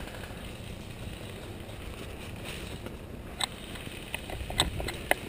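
Running footsteps through dry leaf litter and twigs over a low steady rumble, with a few sharp cracks in the second half.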